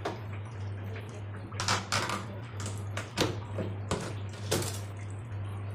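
Sharp metallic clicks and scrapes, about five in a few seconds, as the spring clamp on a front-load washing machine's rubber door gasket is worked loose, over a steady low hum.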